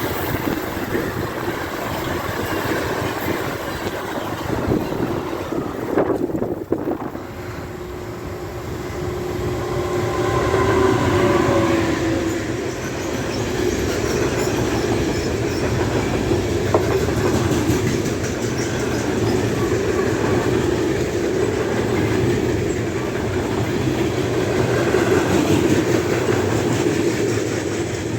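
A train passing close by, with the continuous rumble and clatter of its wheels running over the rails.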